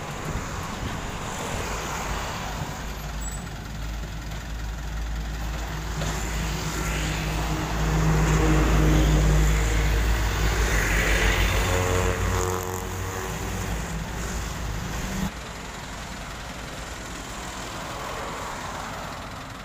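A diesel truck passing close on the road, its engine loudest about eight to twelve seconds in and falling in pitch as it goes by, over steady engine and traffic noise. About fifteen seconds in the sound drops suddenly to a quieter, steady diesel engine running.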